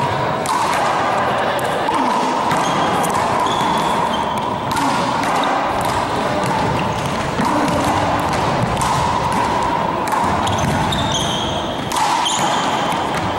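One-wall handball rally: a small rubber handball slapped by hand, smacking off the wall and bouncing on a wooden gym floor in a run of sharp, irregular impacts, with short high squeaks from sneakers on the floor.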